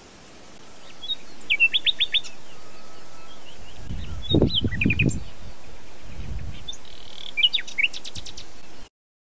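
Outdoor birdsong ambience over a steady hiss, fading in at the start: several short runs of quick, high chirps, with a brief low rumble about halfway through. It cuts off suddenly near the end.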